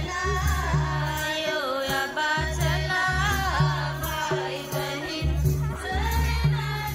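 Music: a folk-style song with voices singing together over a heavy, pulsing bass beat and regular percussion.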